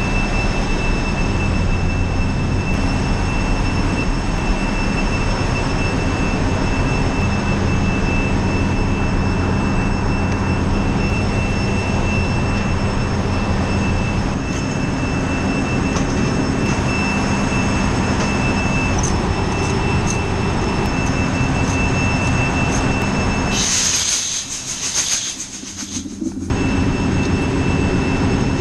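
Loud, steady drone of a ship's engine room, with running diesel generator machinery humming throughout. A short hiss near the end briefly takes over from the low rumble.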